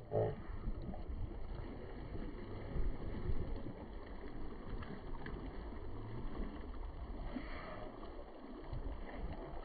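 Wind buffeting the phone microphone, with small lake waves washing against shoreline rocks: an uneven, rumbling noise.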